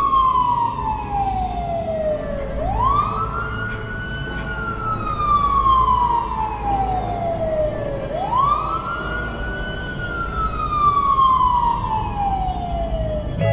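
A siren wailing in slow cycles. Each cycle rises quickly to a high pitch, holds briefly, then falls slowly over about four seconds before rising again, roughly every five and a half seconds, over a low rumble.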